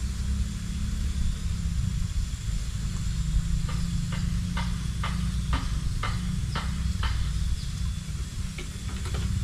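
Outdoor ambience with a steady low rumble, and a run of about eight short, sharp clicks, roughly two a second, in the middle.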